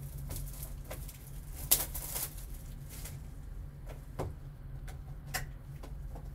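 A shrink-wrapped trading-card box being handled and slit open: scattered clicks and crinkles of plastic wrap and cardboard, with one sharp crackle about two seconds in, over a steady low hum.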